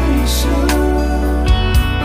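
Karaoke backing music for a slow ballad, with a steady bass line and sustained chords.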